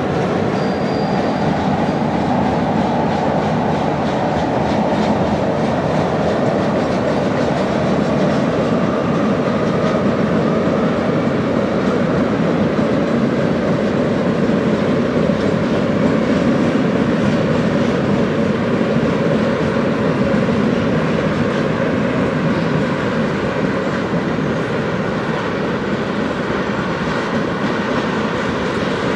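Freight train tank cars rolling steadily across a steel bridge, a continuous loud rumble and clatter of steel wheels on the rails.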